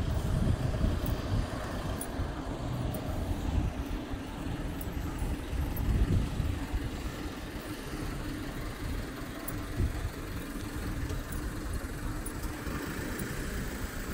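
Road traffic on a city street: cars passing with a low rumble that is loudest at the start and eases off, with another car swelling past about six seconds in.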